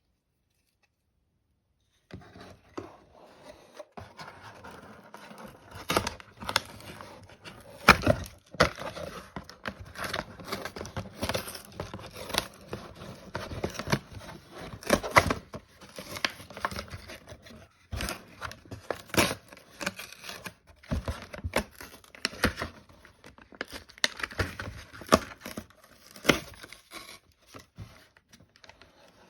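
Doll packaging being opened by hand, starting about two seconds in: crinkling and tearing of plastic and cardboard, with many sharp clicks and snaps.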